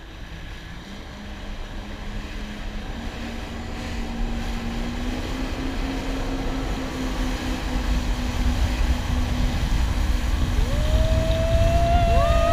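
Jet ski running at speed across choppy water: a low engine drone that rises in pitch and grows steadily louder as it speeds up, over rushing water and wind. Near the end two drawn-out high tones come in and fade, one after the other.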